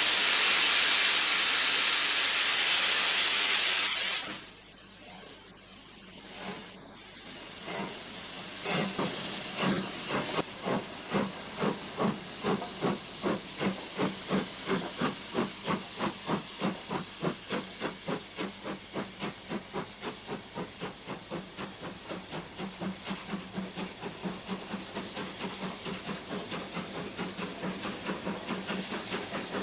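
A steam locomotive with a loud steady hiss of escaping steam, which cuts off about four seconds in. Then it starts away: a few slow, separate exhaust chuffs build into a regular beat of about two to three chuffs a second.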